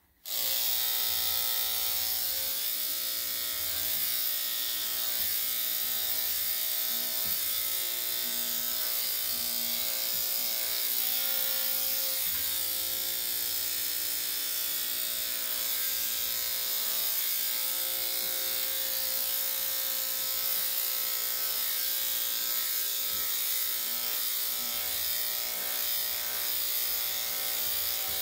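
Corded electric dog grooming clipper with a 3/4-inch blade, switched on right at the start and running steadily as it shaves a Shih-Tzu's body coat: a steady motor buzz with a high whir on top.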